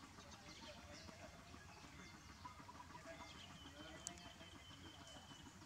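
Near silence: faint outdoor ambience, with a faint thin steady whistle held for about two seconds past the middle.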